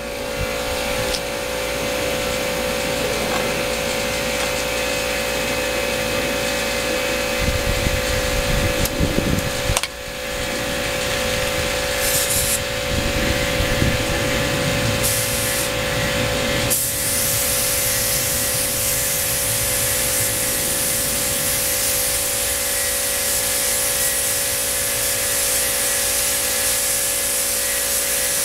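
Air compressor running with a steady hum while a gravity-feed spray gun hisses: a couple of short bursts of air around the middle, then a continuous spray hiss through the last third.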